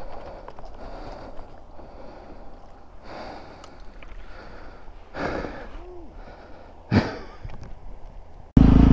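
Heavy, panting breaths from a man exerting himself. Just before the end, a motorcycle engine cuts in abruptly and loudly, revving up and down.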